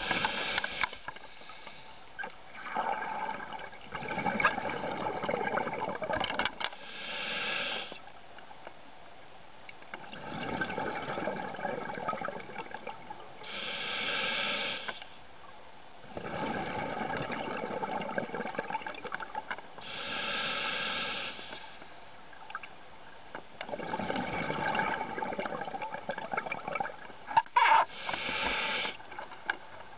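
Scuba diver breathing through a regulator underwater: long bubbling exhalations alternate with short hissing inhalations, four breaths about six to seven seconds apart. A couple of sharp clicks come near the end.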